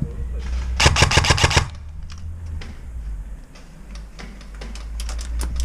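Airsoft guns firing in rapid semi-automatic: a quick string of about eight sharp clacks about a second in, and another string of shots near the end.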